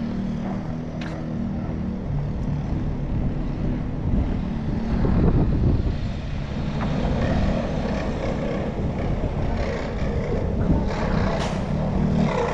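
Engine noise of a passing vehicle: a steady low drone that swells about five seconds in.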